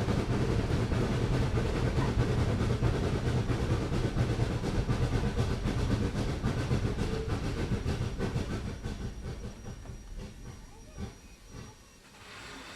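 Steam train running, with steam hissing and rail noise, gradually dying away over the last few seconds.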